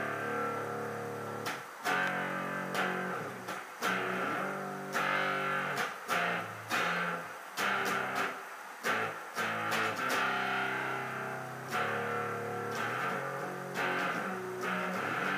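Electric guitar playing chords, each struck sharply and left to ring, one or two strikes a second in a slow progression.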